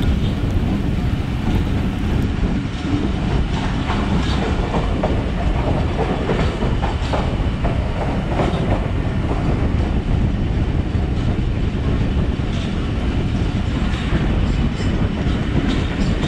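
Passenger train running along the track, heard from on board: a steady rumble of the coaches with the wheels clicking over rail joints now and then.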